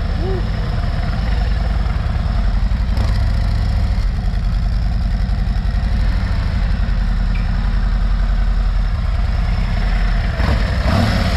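Milwaukee-Eight 117 V-twin of a 2024 Harley-Davidson Road Glide idling steadily.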